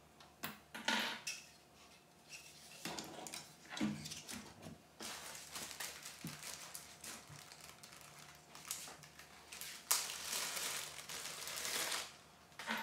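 Handling noises from a graphics card, PCIe riser card and cables being fitted into an open metal mining-rig frame: irregular clicks, knocks and rustling, with a longer rustling stretch about ten seconds in.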